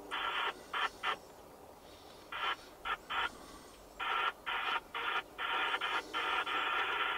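Railroad scanner radio sounding a series of short electronic tone bursts in groups, then a longer held tone near the end.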